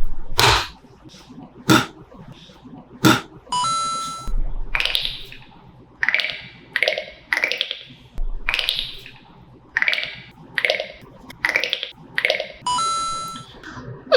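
Beatboxed sound effects made with the mouth: a few sharp clicks, then a short buzzy beep and a run of about nine quick breathy swooshes, closed by another buzzy beep.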